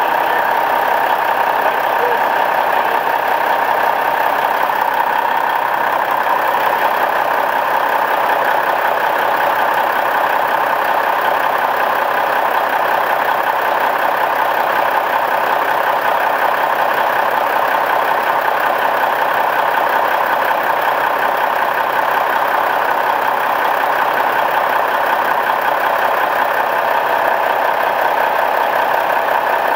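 A Peterbilt truck's Cummins diesel engine idling steadily; it is a high-mileage engine with about 600,000 miles on it.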